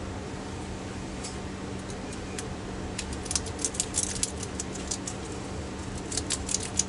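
City rake pick being scrubbed in and out of a Master Lock tailgate lock's pin-tumbler cylinder: a rapid run of light metallic clicks, sparse at first and dense from about three seconds in, as the pins are raked.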